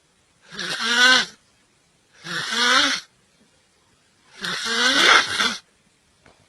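A person snoring: three loud snores about a second long each, with a wavering pitched tone and silence between them.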